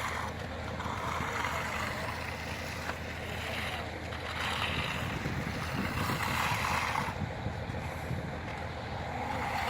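Stiff broom dragged across fresh concrete in long strokes, each a hissing sweep of about three seconds, over a steady low rumble.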